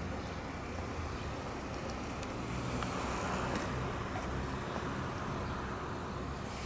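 Steady low vehicle rumble with an even hiss over it.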